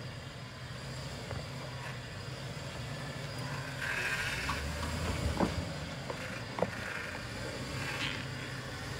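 Lifted Chevrolet Suburban crawling slowly over rocks on a low, steady engine note, with tyres grinding over stone, some creaking and two sharp knocks about halfway through.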